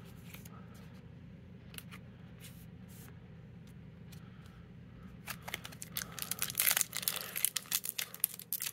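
Foil wrapper of a Pokémon booster pack crinkling and tearing as it is opened by hand, starting about five seconds in with a rapid run of sharp crackles. Before that there is only a faint steady hum.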